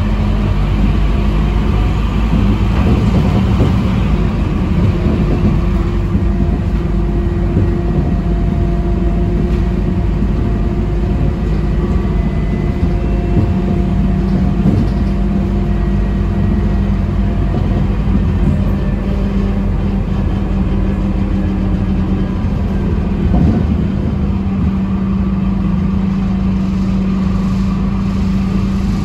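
Scania K230UB bus's five-cylinder diesel engine running steadily under way, heard from inside the passenger cabin together with road and tyre noise. A single bump or knock comes about 23 seconds in.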